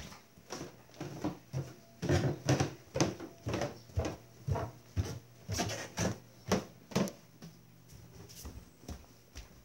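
Footsteps on a wooden floor at a walking pace, about two steps a second, heaviest in the middle and easing off near the end.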